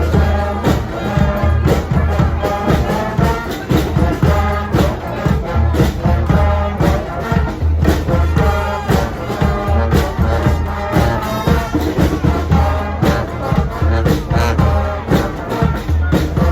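Street band of horns and drums playing a tune live, with a steady drum beat under the horns.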